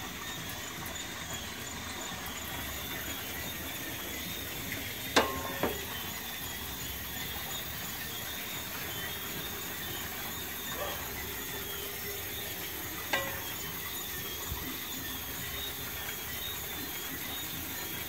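Hands shaping dumpling dough in an aluminium pot, with two sharp knocks against the pot about five seconds in and another about thirteen seconds in. Underneath runs a steady hiss with faint, high, repeated chirping of night insects.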